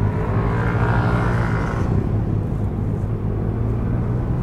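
Motorcycle engine running steadily while riding, a constant low drone, with a higher hiss that swells and fades in the first two seconds.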